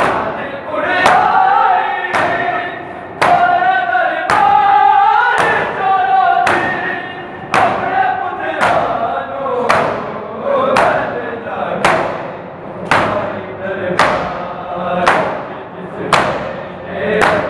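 Matam: a crowd of men slapping their chests in unison, about once a second. Underneath, a group of men chants a noha, a Shia mourning lament, in chorus.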